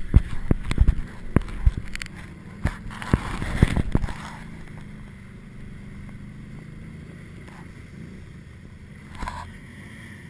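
ATV engine running at low speed, with a rapid series of knocks and rattles over the first four seconds, then a steadier, quieter run.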